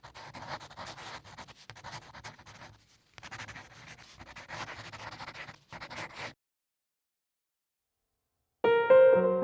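Scratchy, rustling noise with short breaks for about six seconds, then it cuts off to silence; piano music starts near the end.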